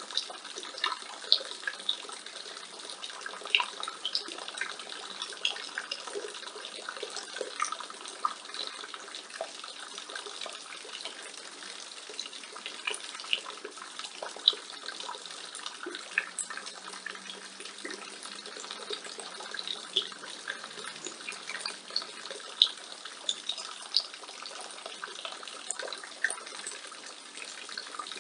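Rainwater falling from a roof gutter: a steady splashing stream with many sharper drips and splashes at irregular moments.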